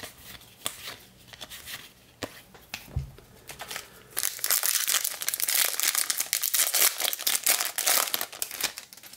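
Cards being handled with a few light clicks and a soft thump about three seconds in, then a foil Bowman Draft trading-card pack being torn open, its wrapper crinkling and tearing for about five seconds.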